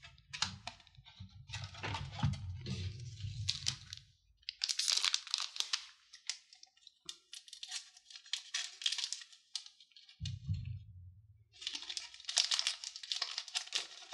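Foil booster-pack wrapper crinkling in several bursts as it is handled and cut open with scissors, with a low rumble of handling near the start and again about ten seconds in.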